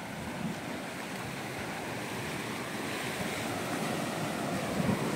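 Sea surf washing against a rocky shore: a steady, even wash that grows gradually louder, with some low wind rumble on the microphone.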